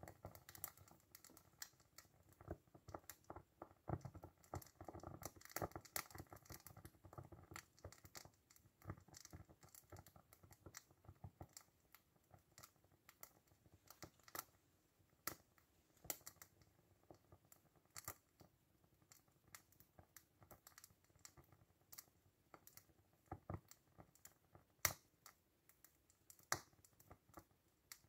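Faint, irregular clicks and crackles from a small hand-built steam engine's boiler and burner as it heats up for its first steaming, with no steady running beat yet.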